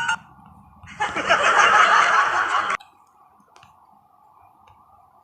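A comedy sound effect of snickering laughter, played back as a preview clip. It starts about a second in and lasts under two seconds, then cuts off suddenly.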